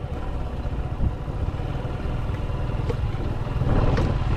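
Single-cylinder motorcycle engine running, with a few sharp knocks, getting louder near the end.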